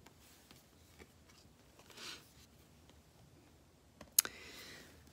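Tarot cards being handled: a soft swish of a card about two seconds in, then a sharp tap a little after four seconds in as a card is set in place on the display, followed by a faint brief scrape.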